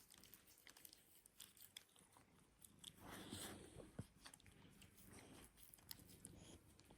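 Faint scuffling, mouth clicks and chewing-like noises from a cat and a dog, with a louder rustle about three seconds in and a sharp click about a second later.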